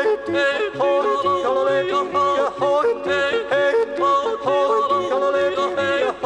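Two men yodeling in duet, their voices leaping quickly between low and high notes in an Alpine yodel refrain, over a rhythmic instrumental accompaniment.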